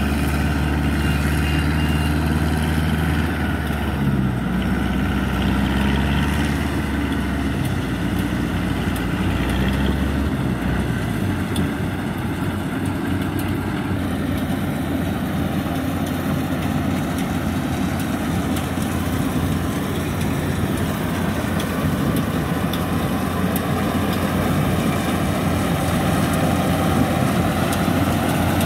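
Yanmar YH850 rice combine harvester's diesel engine running steadily while it harvests. It makes a continuous engine drone whose low hum turns rougher about ten seconds in.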